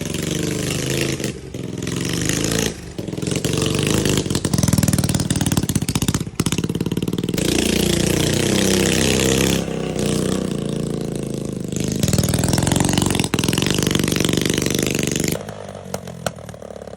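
Honda Z50's 50cc four-stroke single-cylinder engine running on a test ride, its pitch rising and falling as it revs up and down, with several abrupt breaks where the sound cuts. About fifteen seconds in it drops to a much quieter run.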